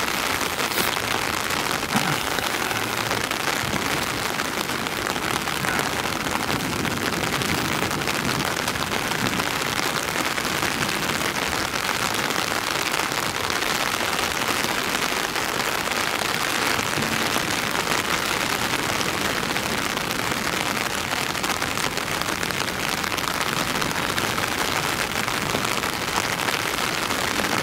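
Heavy rain pouring down steadily: a dense, even hiss, with a single click about two seconds in.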